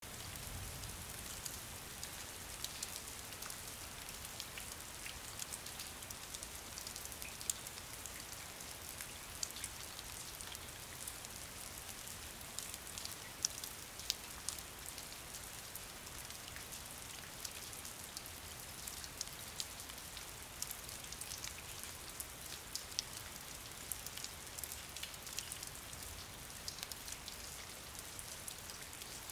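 Steady rain falling, an even hiss broken by frequent sharp clicks of single drops hitting nearby.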